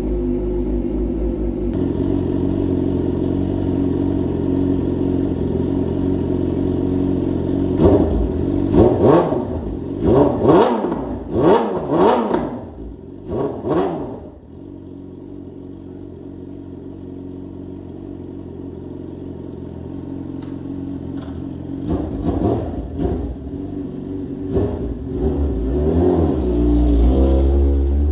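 Yamaha R6 inline-four engine running through a Leo Vince GP slip-on exhaust: idling, then a quick run of sharp throttle blips about eight seconds in, settling back to a lower idle, and revved again several times near the end.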